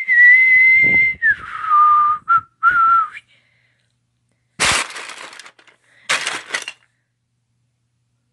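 A loud whistle-like tone, held high for about a second, then sliding down to a lower held tone that breaks off twice. About a second and a half later come two short, harsh crashing bursts of noise, a second and a half apart.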